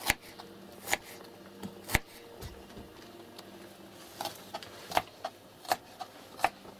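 Knife chopping on a wooden cutting board: single sharp knocks about once a second at first, then a run of more irregular knocks, over a faint steady hum.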